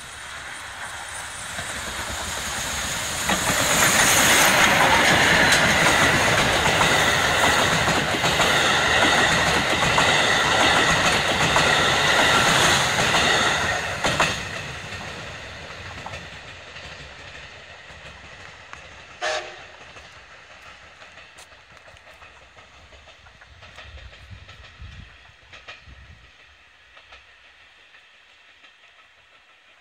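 D51-200 steam locomotive and its coaches passing close by. The sound builds over the first few seconds and is loudest for about ten seconds with the clatter of wheels over rail joints. It drops sharply as the last coach goes by, then fades into the distance, with one brief sharp sound a few seconds after the train has passed.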